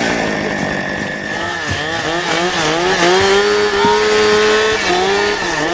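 Chainsaw engine revving, its pitch rising and falling over and over, about once a second.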